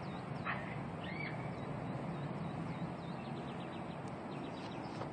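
Small birds chirping in short rising and falling calls, with a quick run of repeated notes about three and a half seconds in, over a steady low rumble from the sky that the recordist cannot identify.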